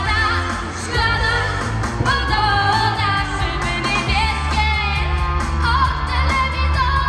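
A young woman singing a Polish pop song live into a handheld microphone, over pop backing music with a steady bass beat.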